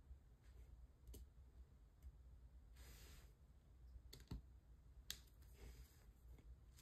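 A few faint clicks and taps from a diamond-painting drill pen picking up resin drills from a plastic tray and pressing them onto the canvas, with a brief rustle about three seconds in.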